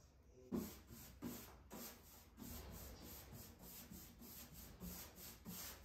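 Paintbrush brushing chalk paint onto a thin plywood panel: faint, rhythmic rubbing of bristles on wood, about three strokes a second.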